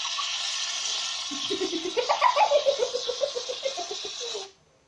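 A girl laughing in quick, rhythmic pulses over a steady hiss; both cut off suddenly near the end.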